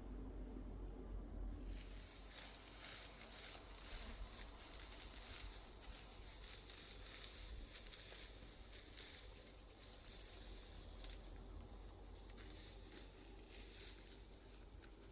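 Dense, dry crackling and rustling hiss full of small snaps, starting abruptly about a second and a half in.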